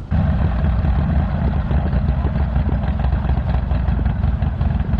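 Harley-Davidson Sportster Iron 1200's air-cooled V-twin engine with a Stage 1 upgrade, running with a steady, loud, low-pitched sound.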